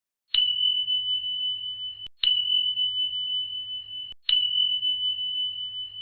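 A high, steady electronic ringing tone sounds three times, about two seconds apart. Each starts with a sharp click and cuts off abruptly, the three identical, over a faint low hum.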